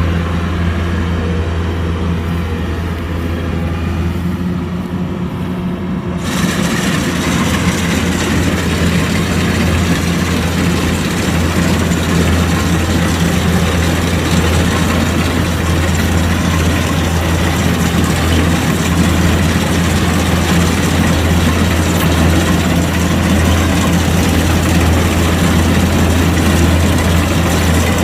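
Kubota DC-105X combine harvester running steadily with a deep engine hum. About six seconds in, the sound suddenly grows louder and brighter, with a rushing mechanical noise over the hum, and stays that way.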